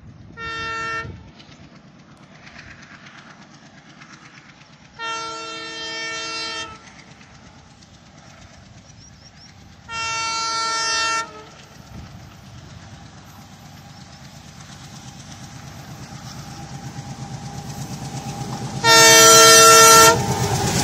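WDM3D ALCO diesel-electric locomotive sounding its horn four times as it approaches: a short blast, a longer one of nearly two seconds, another of about a second, and the loudest blast near the end. Between the blasts the locomotive's diesel engine rumble grows steadily louder as it draws near.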